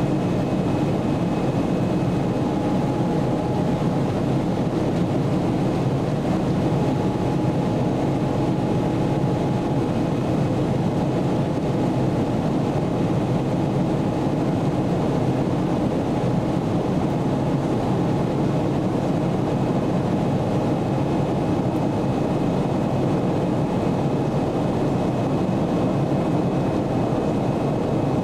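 Cabin noise inside a Boeing 777-300ER in flight: the steady drone of its GE90 engines and the airflow over the fuselage, with faint steady whines on top.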